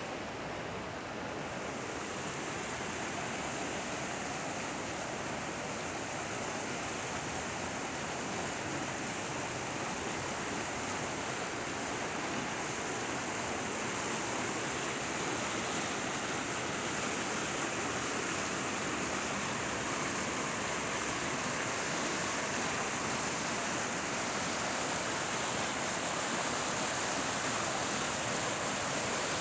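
Muddy, high-running creek rushing over rocks and small drops, a steady flowing noise that grows slightly louder toward the end.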